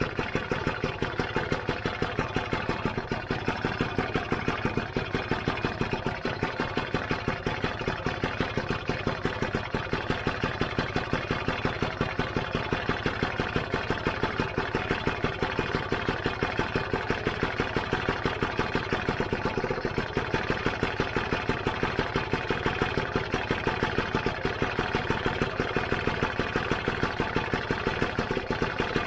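Lambretta GP's freshly rebuilt two-stroke single-cylinder engine idling steadily after a kick start, with an even, regular beat that stays at the same speed throughout.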